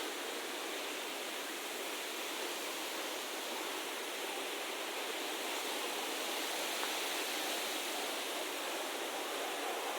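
Steady rush of running water, an even, unbroken noise with no rhythm.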